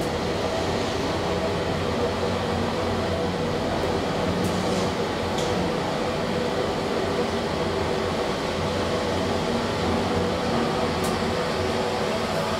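2012 SMW traction elevator car travelling through its shaft: a steady ride hum and rumble with a few faint ticks.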